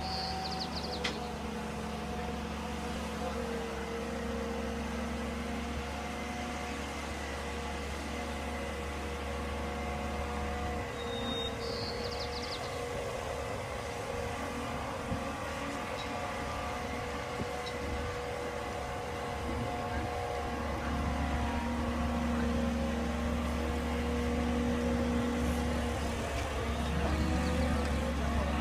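A boat travel lift's engine and drive run steadily with a whining tone as the gantry drives along, carrying a sailboat in its slings. It grows louder over the last several seconds as it comes closer.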